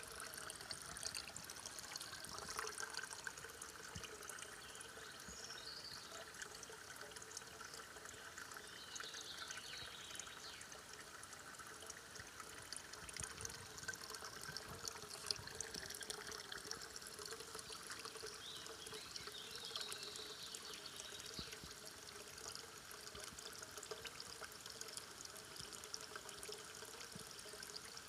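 Faint, steady trickle of spring water pouring from a stone spring's outlet.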